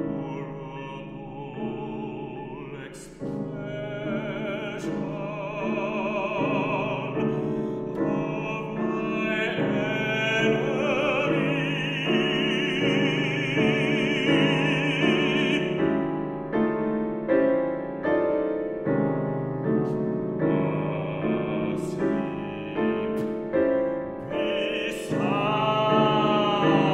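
Classical baritone singing an art song with wide vibrato, accompanied by a grand piano. He holds one long note through the middle and rises into another near the end.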